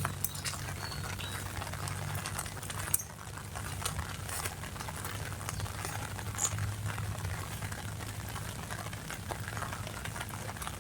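Rain falling, with many small drops pattering and ticking, over a steady low hum.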